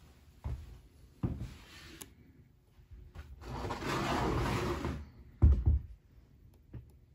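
Handling noise from a camera being picked up and moved: a few knocks, a rubbing rustle lasting about a second and a half from about three and a half seconds in, and two loud thumps about five and a half seconds in.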